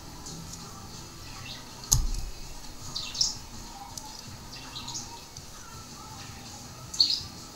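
Steel connecting rod, piston and needle-bearing parts handled by hand: a sharp knock about two seconds in, then a few short, high-pitched metallic clicks and clinks, the last one near the end.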